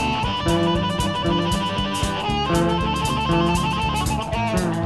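Background music: guitar-led rock with a steady beat.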